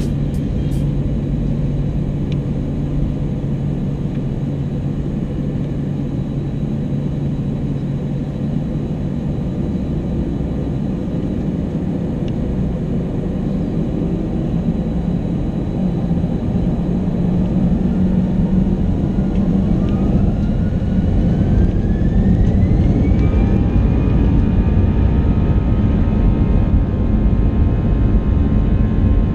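Airbus A320 jet engines heard from the cabin: a steady low rumble while taxiing, then a little past halfway a whine rises in pitch, levels off, and the engine noise grows louder as the engines spool up for the takeoff roll.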